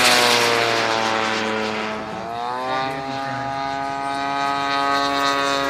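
Large radio-controlled model warplanes flying by: the steady drone of a propeller engine, its pitch sliding down and then climbing again about two seconds in. Over the first couple of seconds a high rushing sound fades away, fitting the model Panther's jet passing.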